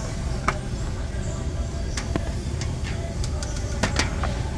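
Steady low machinery rumble with a few scattered faint clicks.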